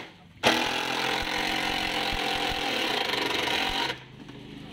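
Cordless drill running in a steady whine, driving screws to fasten a loudspeaker driver into its cabinet. It pauses briefly right at the start, runs again for about three and a half seconds, then stops.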